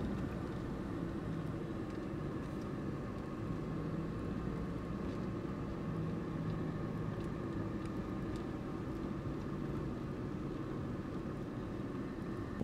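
Steady hum of a car's engine with road noise, heard from inside the moving car.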